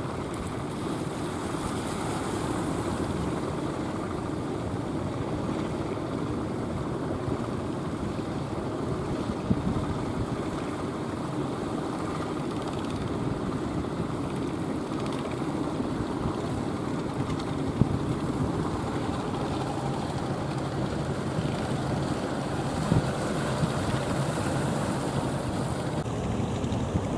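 Motorised outrigger fishing boats running their engines through rough, breaking surf: a steady mix of engine noise, surging waves and wind, with a few brief knocks.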